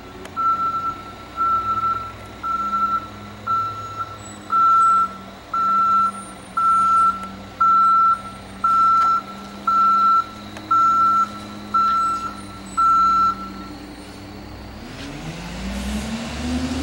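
Backup alarm on a CCC Wittke manual side loader garbage truck, beeping about once a second over the truck's steady engine hum and stopping about 13 seconds in. Near the end the engine speeds up, its note rising.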